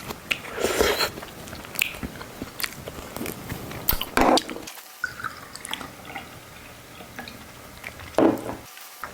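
Close-miked chewing and biting of oysters, with scattered small clicks and louder mouth sounds about four seconds in and again near the end.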